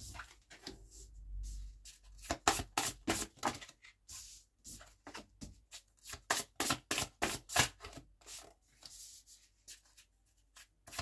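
A deck of oracle cards being shuffled and handled by hand: a run of short, sharp, irregular card snaps and flicks, a few each second.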